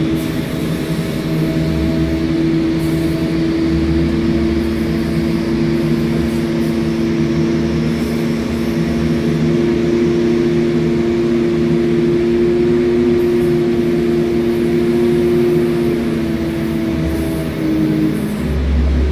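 Engines running steadily: a drone of several held hum tones over a low rumble that swells and fades every couple of seconds, the tones dipping slightly in pitch near the end.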